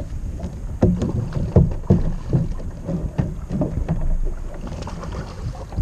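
Wind on the microphone and water against a plastic kayak hull, with a string of short, irregular splashes and knocks about every half second as a hooked snapper thrashes at the surface beside the kayak.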